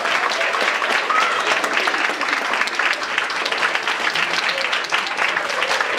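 Audience applauding, a dense steady clapping with voices among it.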